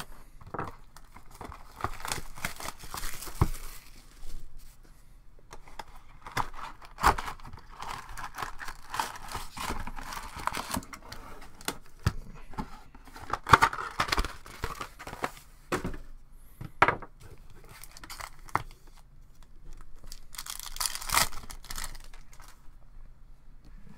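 Plastic shrink wrap and foil wrappers of hockey card packs being slit, torn open and crinkled in several bursts, with small clicks and taps of cardboard and packs being handled in between.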